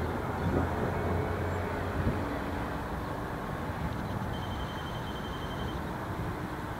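Steady road traffic noise from a nearby city street, a low rumble that is strongest in the first couple of seconds, with a faint high thin tone briefly near the middle.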